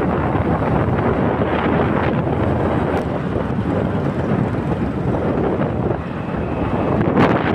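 Wind buffeting the microphone in a steady rush, with the rumble of moving traffic beneath it. The noise grows briefly louder and brighter just before the end.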